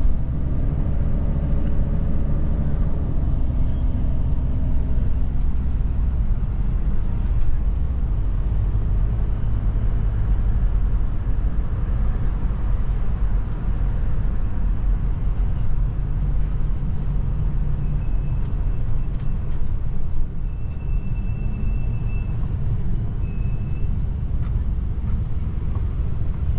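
Steady low engine and road rumble of an RV heard from inside its cab while driving in city traffic, with the engine's pitch shifting in the first few seconds.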